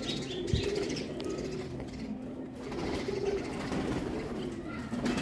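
Domestic pigeons cooing: low, overlapping, murmuring coos.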